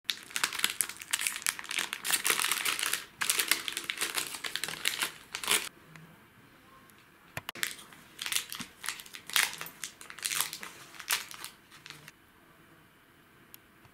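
Plastic snack packaging crinkling as it is handled, dense for about the first five seconds, then in scattered short bursts.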